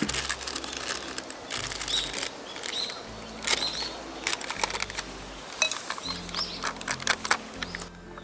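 Irregular crinkling and rustling of a small packet being handled, in quick uneven bursts, with small birds chirping briefly now and then.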